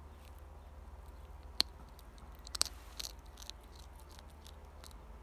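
European hedgehog chewing dry cat kibble: irregular small crunches and clicks, the sharpest about a second and a half in and a quick cluster around two and a half to three seconds.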